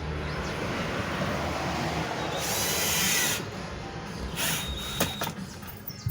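Power drill driving screws to fasten a car audio amplifier in place. It runs for about three seconds, then gives a short second burst, followed by a couple of sharp clicks.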